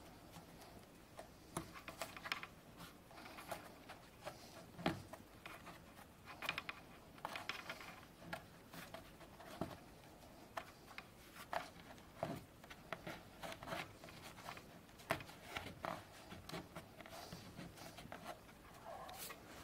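Hands working black textile adhesive tape over the picture wire on a wooden canvas stretcher frame: irregular crackles, rustles and light taps.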